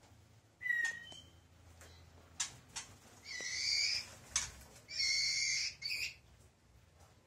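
White-rumped shama (murai batu) calling: a short falling whistle, several sharp chips, and two harsh calls about a second long each.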